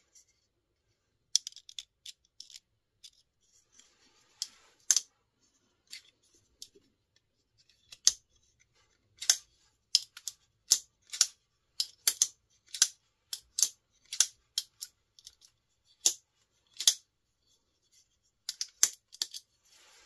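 Benchmade Freek folding knife's AXIS lock and blade being flicked open and snapped shut over and over: dozens of sharp metallic clicks at an irregular pace, coming thicker in the second half.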